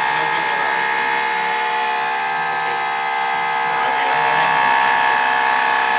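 Homemade CNC machine running, its motors giving a steady whine of several tones.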